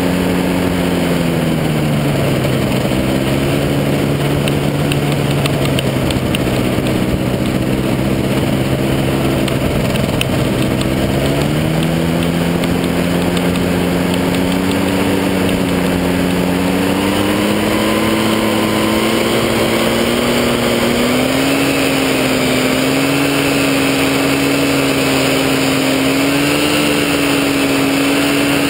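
Powered parachute's engine and propeller running in flight, heard from the pilot's helmet with wind noise. The engine is throttled back about two seconds in, opened up again around eleven seconds, then slowly climbs in pitch.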